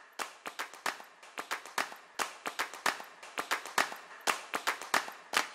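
Light applause from a small group: separate hand claps, several a second, at irregular loudness.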